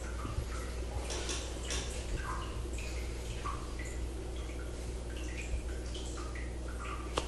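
Hands rubbing and pressing on skin during manual back manipulation, making small scattered wet ticks over a steady low hum, with one sharp click near the end.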